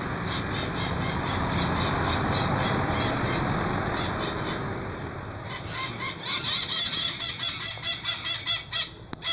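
Maritacas (small Brazilian parrots) calling in the treetops: a run of harsh, rapidly repeated high screeches that grows louder about halfway through. A broad rushing noise lies under the first half.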